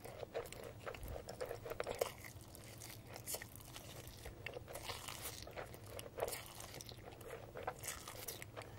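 Close-miked eating sounds of a person chewing mouthfuls of spicy instant noodles, a run of irregular wet mouth clicks and smacks.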